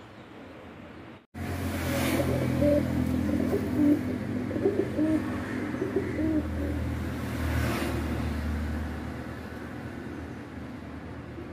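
Fantail pigeons cooing in short, bending phrases for several seconds over a steady low hum, which fades gradually.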